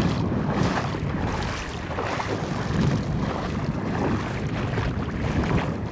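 Shallow water splashing and sloshing around a wader's legs as he walks through it, with wind rumbling on the microphone.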